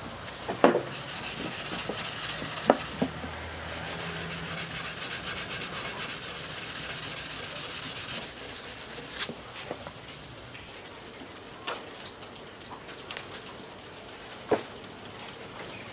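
Sanding: a dense, fast, steady scratching of abrasive on a workpiece that stops about nine seconds in. A few light knocks follow.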